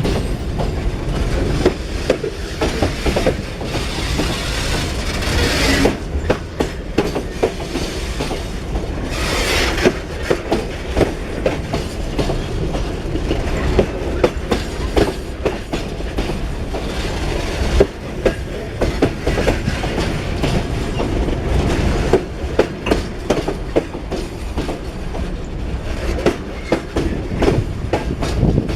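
Loaded freight wagons rolling past at close range, their wheels clacking over rail joints over a steady low rumble, with a couple of brief rushes of higher-pitched noise.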